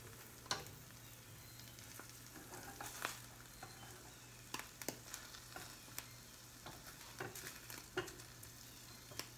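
A buttered rye sandwich frying softly in a skillet over a gas flame, with light clicks and scrapes of tongs against the pan at irregular moments.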